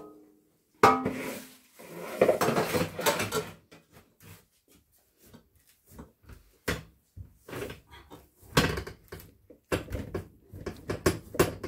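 A sharp metallic kitchenware clatter about a second in, then irregular soft pats and knocks of a ball of homemade play dough being kneaded and pressed on an aluminium sheet pan.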